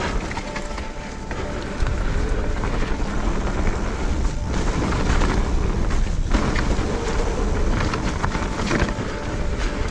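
Wind buffeting the action camera's microphone as a Specialized Turbo Levo electric mountain bike is ridden over rough, muddy trail, with the tyres rumbling and the bike clattering over bumps. It gets louder about two seconds in.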